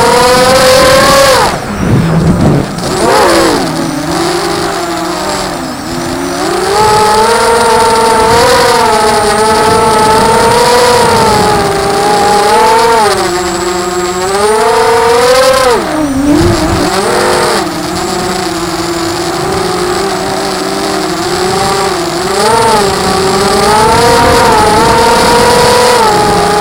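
Brushless motors and propellers of a ZMR 250 FPV racing quadcopter whining in flight, the pitch rising and falling constantly with the throttle. The pitch drops sharply about two seconds in and again about sixteen seconds in, as the throttle is chopped and picked back up.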